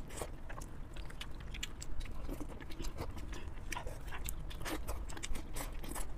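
Close-up wet chewing and biting on braised sheep's head meat, with the meat pulled and torn apart by gloved hands: many small irregular smacking clicks.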